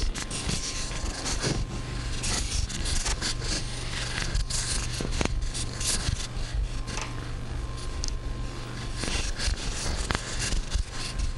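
Irregular, continuous close rubbing and scratching noises, dense strokes one after another, over a steady low hum.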